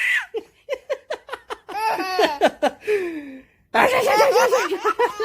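A baby laughing in short bursts of giggles, breaking off briefly about three and a half seconds in, then laughing louder near the end.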